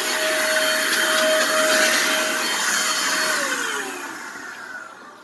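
Electric blower running as it blows dust out of a mixing console's chassis: a steady motor whine over rushing air. About three seconds in it is switched off, and its pitch falls as it winds down.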